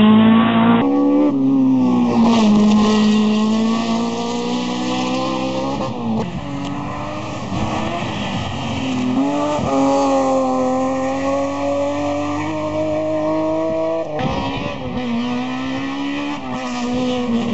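Hillclimb race cars' engines at hard throttle as they climb the course. The engine pitch rises and drops back several times as the cars change gear.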